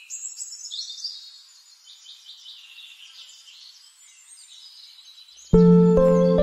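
Birds chirping and twittering, many quick high calls overlapping. Near the end, loud music with steady held notes starts over them.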